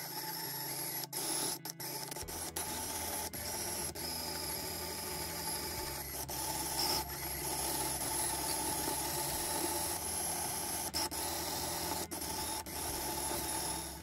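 Drill press running with a steady whine while a twist bit drills out the pinned pivot of a Leatherman Squirt PS4 multitool, grinding into the metal pin. The sound breaks off briefly several times.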